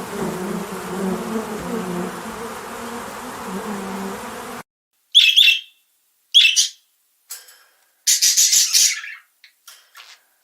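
A flying insect buzzing steadily, cut off sharply about four and a half seconds in. Then, after a pause, two short loud bird chirps about a second apart and a longer burst of higher-pitched bird calls near the end.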